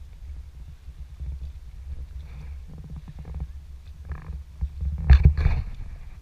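Water sloshing against the hull of a Prijon Seayak 500 LV sea kayak under way, heard as a steady low rumble with small splashes and knocks. About five seconds in comes a louder burst of splashing knocks from the paddle and hull.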